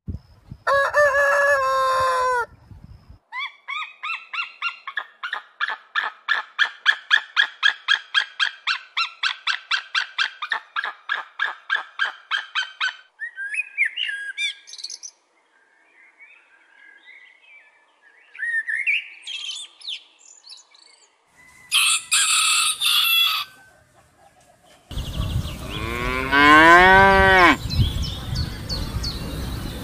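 A rooster crows once near the start. A long run of rapid, evenly repeated calls follows, then a male common blackbird singing short fluting phrases with pauses between them. In the last few seconds cattle moo in long, low calls.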